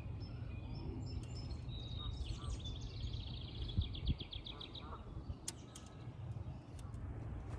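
Small birds chirping, one giving a rapid high trill of quick repeated notes from about two seconds in that lasts a couple of seconds, over a steady low rumble.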